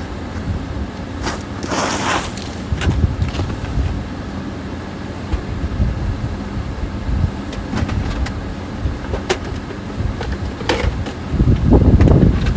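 Steady low outdoor rumble with scattered clicks and knocks, a short scraping rush about two seconds in, and a louder rumble swelling near the end.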